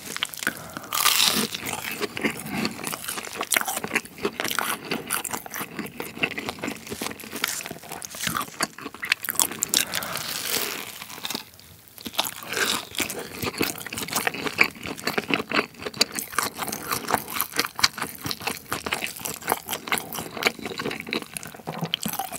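Crisp breaded crust of an air-fried rolled pork cutlet filled with pollock roe crunching with each bite and chew. There is a short pause about halfway, then another bite and more chewing.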